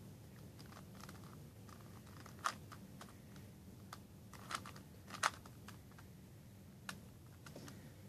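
A plastic Rubik's Cube being turned by hand: irregular clicks and clacks as its layers are twisted and snap into place, the loudest about two and a half seconds in and just after five seconds.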